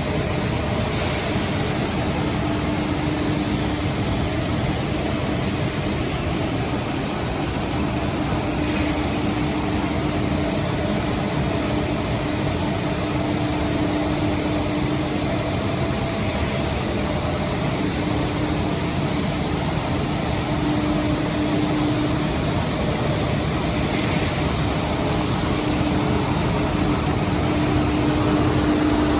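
Coffee dryer running while it dries soybeans: steady machine noise with a low hum that fades in and out every few seconds.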